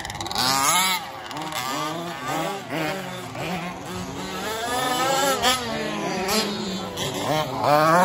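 Several 4WD remote-control racing cars' motors revving, their overlapping pitches rising and falling as they accelerate and slow around the track. The sound swells loudest about half a second in and again near the end as a car passes close.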